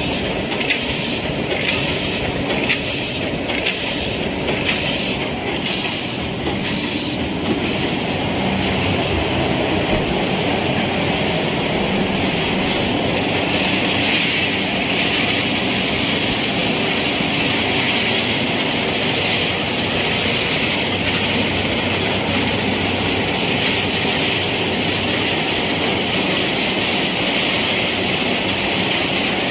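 Candy production line machinery running with a steady mechanical noise, with a regular beat of about one stroke every three-quarters of a second for the first several seconds before the noise evens out.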